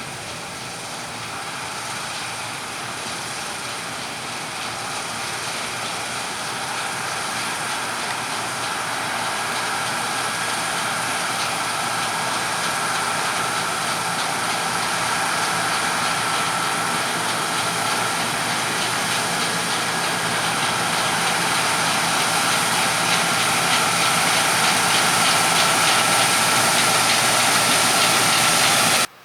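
Harvest machinery running steadily and growing gradually louder as it draws closer, with a faint held whine in the mix. The sound cuts off abruptly just before the end.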